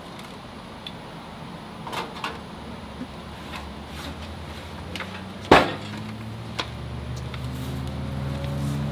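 A few scattered knocks and clicks, one much louder about halfway through, with a low droning hum that comes in and grows louder over the second half.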